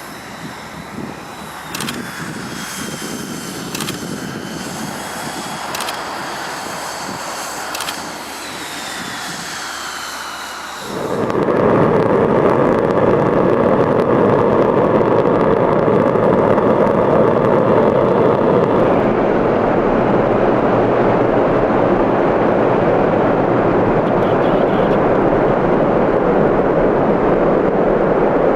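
Tupolev Tu-160's four NK-32 turbofan jet engines: a high whine that glides downward, with sharp clicks about every two seconds. About eleven seconds in, this gives way suddenly to a much louder, steady jet rush.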